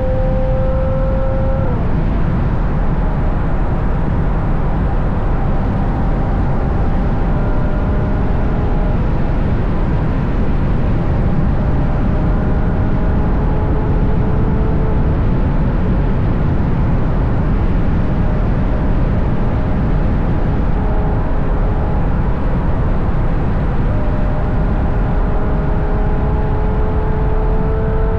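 Ferrari GTC4Lusso cars with Capristo exhausts cruising at speed. Their engine note is steady and slowly rises in pitch near the end, under heavy wind and road rumble on an exposed outside-mounted microphone.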